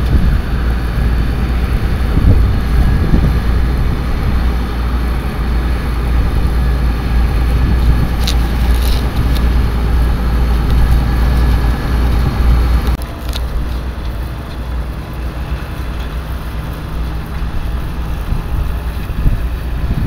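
Tractor engine running steadily under load while pulling a reversible plough through the soil, with wind rumbling on the microphone. The sound drops suddenly in level about two-thirds of the way through.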